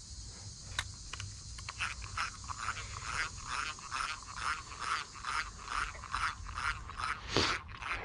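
A 1950s Luxor spinning reel being cranked to retrieve line, its old gears giving a steady run of short grinding clicks, two to three bursts a second.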